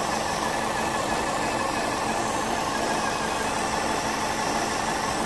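Vauxhall/Opel Astra J 1.6 engine running warm, with a steady hiss of air being sucked in through a massive vacuum leak. The crankcase breather's diaphragm has split, so the engine runs lean.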